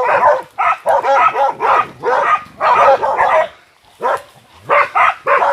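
Dogs barking in quick repeated bursts, with a brief pause a little past halfway.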